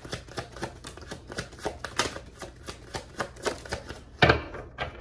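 A tarot deck being shuffled in the hands: a quick, even run of card snaps at about four a second. A little past four seconds in comes one louder knock.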